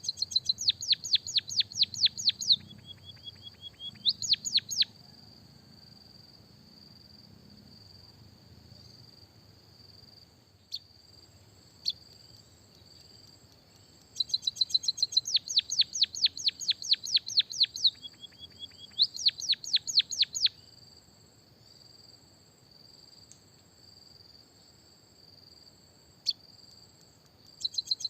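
White-headed munia singing learned canary-style phrases: fast rattling trills of rapid high notes in several bursts, with pauses of several seconds between. A steady high insect-like trill runs underneath throughout.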